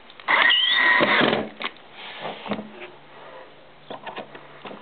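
Cordless drill driving a screw up through a soffit panel: a burst of motor whine about a second long near the start, followed by a few light clicks and a faint low hum.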